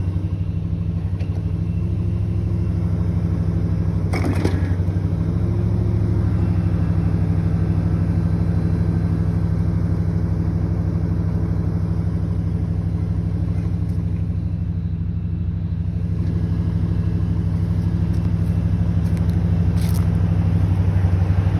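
A vehicle engine running at a steady idle, a low even drone. A brief knock sounds about four seconds in, and a short click comes near the end.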